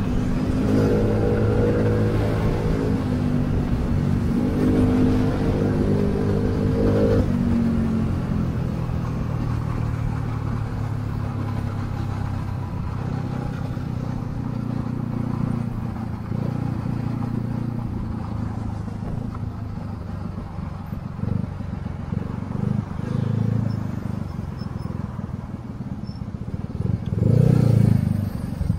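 Small Yamaha scooter's engine running under the rider in city traffic, revving up and easing off in the first several seconds, then running steadily with road and wind noise. Near the end a louder low engine sound comes in as the scooter rides alongside a truck.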